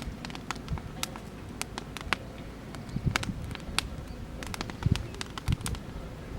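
Oak-wood campfire crackling, with frequent irregular sharp pops and snaps. A few soft low sounds come and go underneath.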